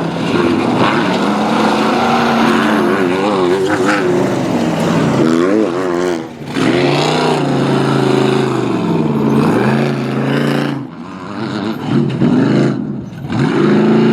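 Off-road race car engines revving as the cars pass one after another. The engine pitch swings up and down several times as they accelerate and back off.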